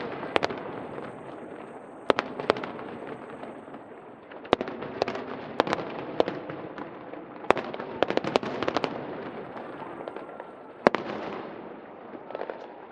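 Aerial fireworks bursting overhead: sharp bangs coming in clusters every couple of seconds, some as rapid runs of several pops, over a steady background of noise.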